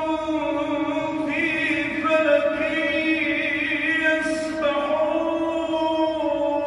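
A man's melodic Quran recitation (tajwid chant) in one long drawn-out line, with quick wavering ornamental turns on the held notes about a second in and again toward the middle.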